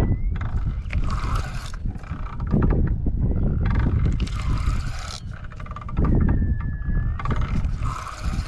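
Spinning fishing reel being cranked in three spurts of about a second each, winding in a snagged line, over heavy wind rumble on the microphone.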